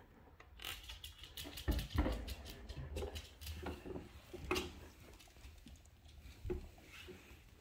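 A miniature schnauzer's claws pattering and clicking on a hard plank floor as it runs about after a ball, with a few louder knocks, the strongest about two and four and a half seconds in.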